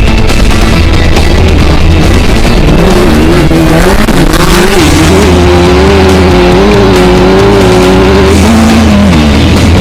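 Off-road race car engine running hard, its pitch rising and falling and dropping near the end, with rock music underneath.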